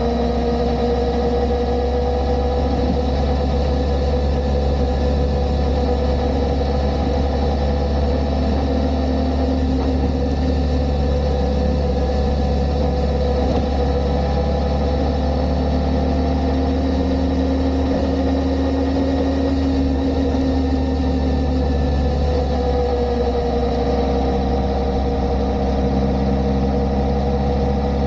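Kawasaki ZR-7S motorcycle's air-cooled inline-four engine running steadily, its pitch drifting slightly.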